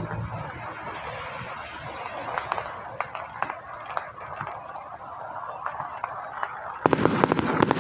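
Firecrackers going off: scattered sharp cracks, then a dense, rapid crackle of a firecracker string setting off a little before the end.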